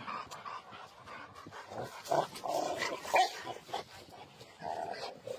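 Rottweilers making short, irregular vocal sounds, loudest about two and three seconds in and again near the end.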